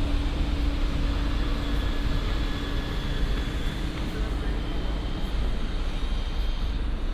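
Steady city street traffic: passing cars' engine and tyre noise, with a low engine hum that fades out about two and a half seconds in.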